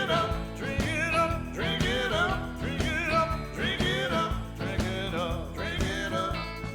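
A song: a voice singing over steady instrumental accompaniment.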